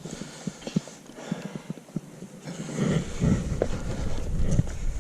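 Light knocks and scuffs of hands and shoes scrambling over rock, scattered through the first three seconds. From about three seconds in, a louder low rumble on the microphone joins them.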